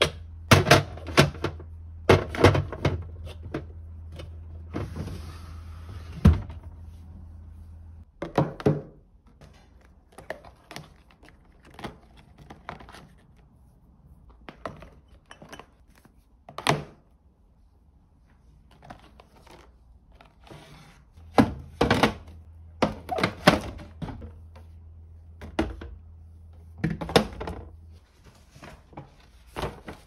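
Food storage containers and bottles being handled and set down, giving a string of irregular knocks and clunks. A low steady hum runs under the first several seconds and again later on.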